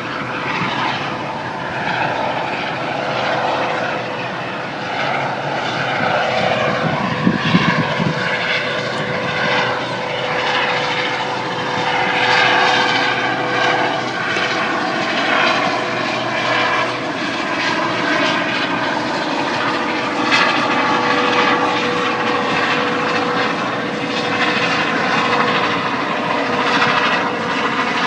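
Helicopter running steadily: an unchanging engine whine over a dense, slightly swelling noise of rotor and airflow.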